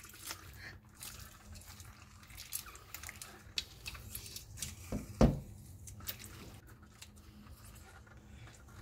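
Rubber-gloved hands working a raw octopus in a stainless steel colander, turning its head inside out to pull out the innards: wet, slippery handling noises and scattered small clicks, with one louder knock about five seconds in.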